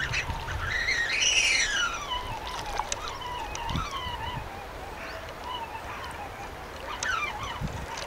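A bird calling: one long call that rises and then slides slowly down with a wavering tail, and a shorter sliding call about seven seconds in.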